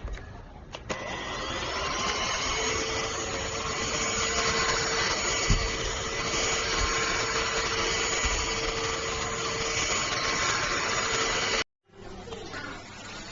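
K7 Pro cordless handheld vacuum cleaner running steadily, its motor giving a whine over the suction noise, with a single knock about halfway through. The sound cuts off abruptly near the end and comes back quieter.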